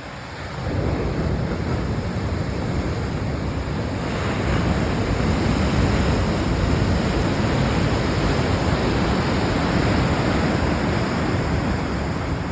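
Ocean surf washing in, a continuous rush of breaking waves that dips briefly at the start and swells again after about four seconds.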